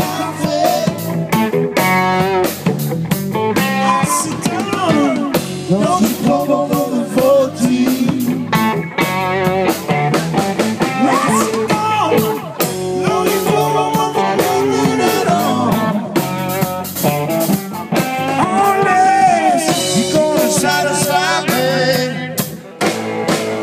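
Blues-rock band playing live: electric guitars, bass guitar and drum kit.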